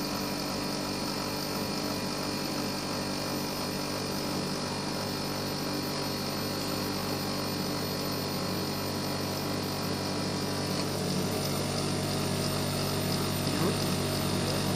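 Split air conditioner running with a steady hum made of several fixed tones over a whoosh of air. It gets slightly louder about two-thirds of the way through. The unit's noise fault has been repaired.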